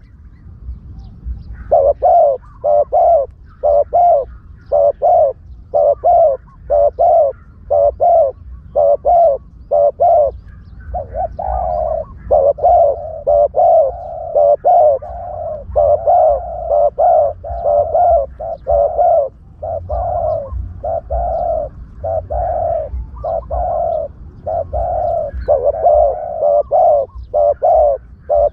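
Spotted dove cooing as a decoy call for trapping: short, hollow coo notes repeated in quick series of about two a second, with brief pauses between phrases, over a low rumble.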